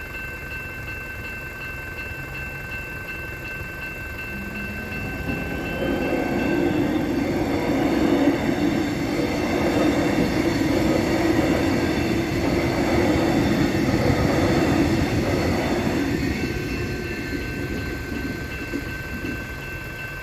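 Six-car Alstom X'Trapolis electric suburban train passing over a level crossing. It builds from about five seconds in, runs loudest for several seconds, then fades. The crossing's warning bells ring steadily before and after it and are drowned out while the train goes by.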